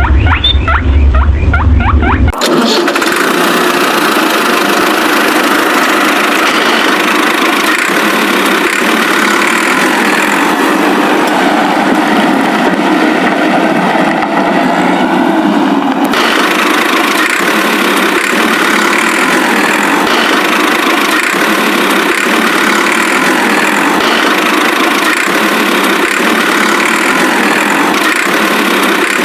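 A small motor running steadily. It comes in with a sudden cut about two seconds in, replacing a deeper sound with squeaks.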